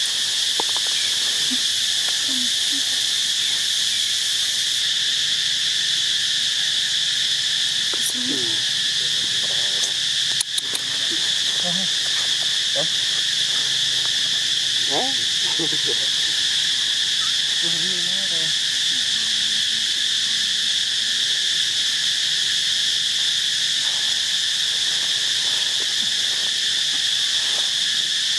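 Steady, shrill chorus of insects droning without a break, with a few short, faint calls in the middle and one sharp click about ten seconds in.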